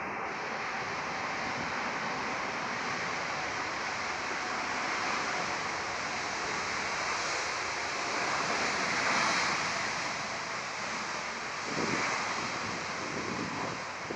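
Jet airliner engines heard as a steady, broad roar that swells a little about halfway through, with wind buffeting the microphone.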